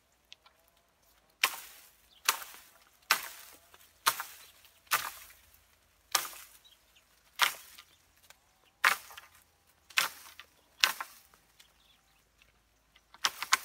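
A wooden pole beating the branches of an olive tree, about ten sharp whacks roughly a second apart, each with a short fading rattle, then a quick flurry of hits near the end. The olives are being knocked down onto nets.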